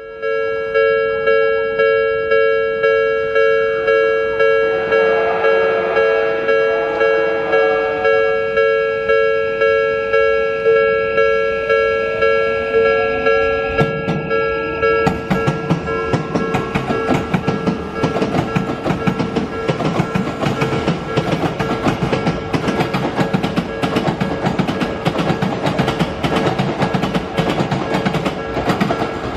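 Japanese level crossing warning bell ringing steadily, about once a second, with a rising motor whine as an Odakyu 5000 series electric train approaches. From about halfway the train passes over the crossing, and its wheels clatter over the rail joints while the bell keeps ringing.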